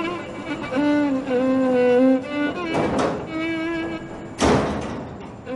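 Slow, sad bowed-string background music with cello and violin holding long notes. Two short thuds cut through it, about three seconds in and again, louder, about a second and a half later.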